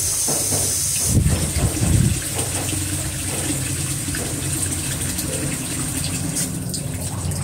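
Tap water gushing into a metal wok in a sink as the wok is rinsed out after its cooking oil has been poured off. A high hiss stops about a second in, louder splashing follows for about a second, then the water runs steadily.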